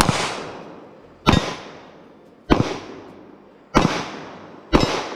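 Five .38 Special revolver shots from a Charter Arms Old Glory five-shot revolver fired double action in quick succession, a little over a second apart, each trailing off in a long echo.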